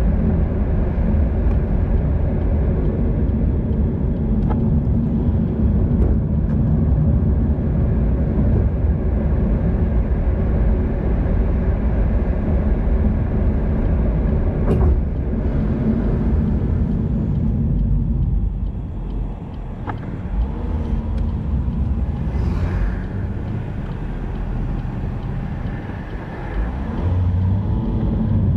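Steady road noise during a bicycle ride: a loud low rumble of wind on the microphone mixed with passing motor traffic, easing off for several seconds about two-thirds of the way in, with a few sharp clicks.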